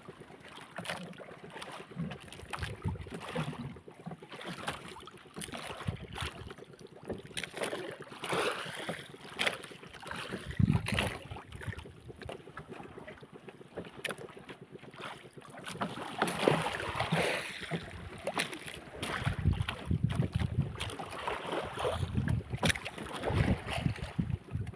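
Water lapping at a small fishing boat's hull, with irregular knocks and rubs against the boat as a handline is hauled in over the side.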